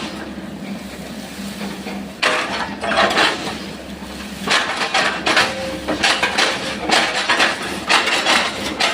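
Sany SY135F excavator's engine running steadily while its bucket chops oil palm trunks. Repeated knocks and clatters come in a few strikes about two seconds in, then thick and fast through the second half.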